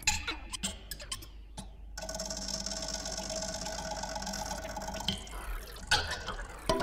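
Experimental electroacoustic soundtrack: scattered sharp clicks and wet, dripping-sounding noises, then about two seconds in a dense hissing, buzzing texture with a few held tones that cuts off suddenly after about three seconds, followed by more sharp clicks and knocks.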